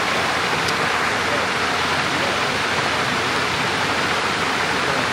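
Steady, even rushing noise at a constant level.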